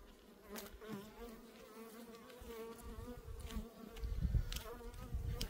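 Buckfast honeybees buzzing steadily over an open hive, a hum with a clear pitch, broken by a few sharp clicks of a hive tool working the wooden frames. A low rumble comes in about four seconds in.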